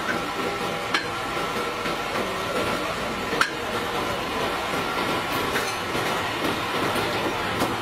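Steady din of a busy street-side roast-meat stall with a faint high whine running through it, broken by a few sharp knocks; the loudest comes about three and a half seconds in.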